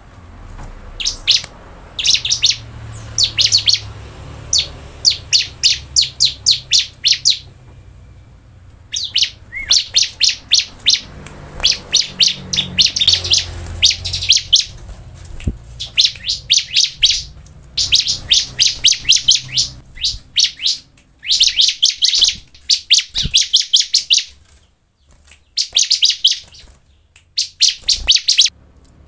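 Bar-winged prinia (ciblek) singing: long runs of sharp, high chirps repeated about four a second, with short pauses between runs.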